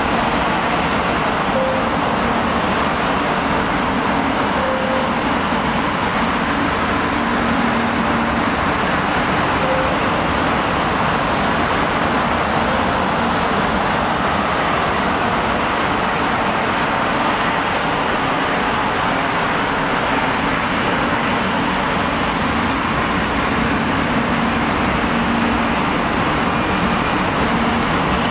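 Steady, unbroken background noise of vehicle traffic, even in level throughout.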